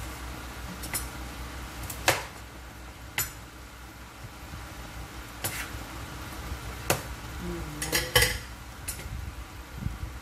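A glass-lidded frying pan simmering on an induction cooker, giving irregular sharp clinks and pops, about eight in ten seconds, with two close together near the end. A steady low hum runs underneath.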